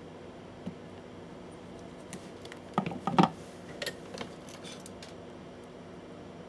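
Wire cutters snipping a wire shorter: a quick cluster of sharp clicks and snaps about three seconds in, then a few lighter clicks a second later.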